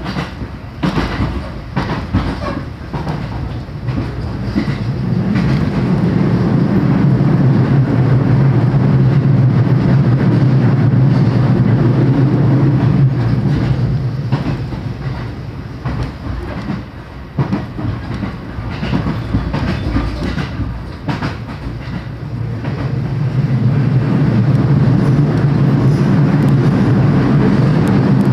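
Electric local train running on the line, heard from inside the carriage: wheels knocking over rail joints with a rushing running noise, and a low steady drone that builds a few seconds in, eases off in the middle and builds again near the end.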